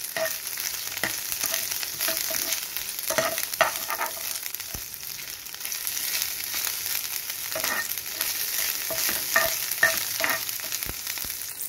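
Green chilies and ginger-garlic paste frying in shallow oil in a ceramic-coated pan, a steady crackling sizzle. A plastic spatula scrapes and stirs across the pan at intervals.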